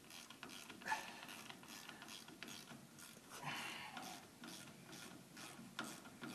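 Ratchet on a 5/16 socket clicking irregularly as a hose clamp is tightened down on a truck's fuel filler hose.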